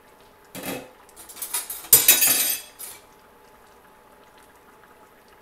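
Kitchen utensils clinking and clattering: a spoon knocking against a metal spoon rest as it is handled. A short knock comes first, then a run of clinks for about two seconds.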